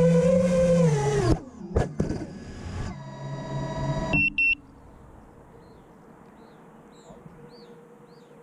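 FPV quadcopter's motors whining, then winding down in pitch and cutting off a little over a second in; a rougher humming follows for a few seconds. A short high double beep comes about four seconds in, then quiet with faint birds chirping.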